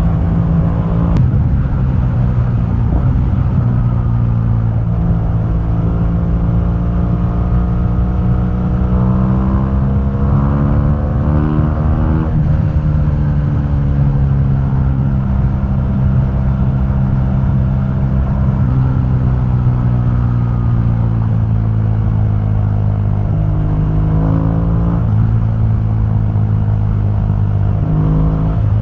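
2015 BMW R1200GS's boxer-twin engine through its stock exhaust while riding, revs climbing for several seconds, dropping sharply about twelve seconds in, then easing down slowly and rising again twice toward the end.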